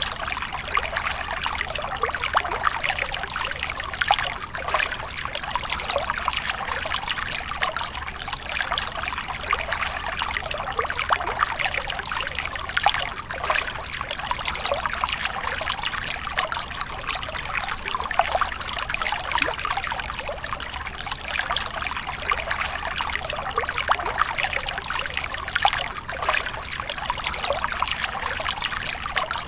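A small trickle of water falling from a rock ledge into a shallow pool, splashing and dribbling steadily without a break.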